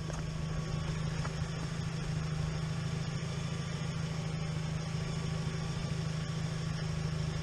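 UAZ 2206 'Bukhanka' van's engine idling steadily.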